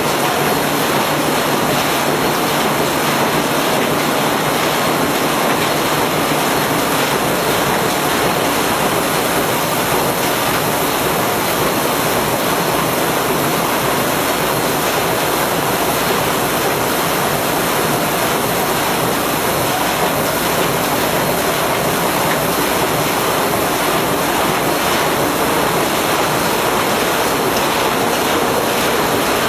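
Corrugated-box flexo printer-slotter folder-gluer machine running, a steady, loud, even mechanical noise as box blanks are fed and folded along its conveyor.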